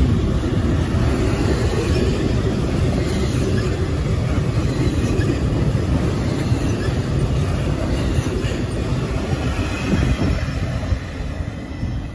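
Norfolk Southern double-stack intermodal well cars rolling past close by, a steady heavy rumble and rattle of wheels on the rails that drops off about ten and a half seconds in as the last cars go by.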